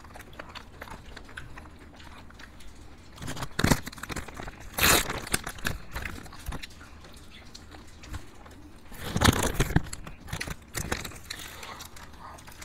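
People eating ice cream close to the microphones: scattered bites and chewing, with a few short, louder noisy bursts about four, five and nine seconds in.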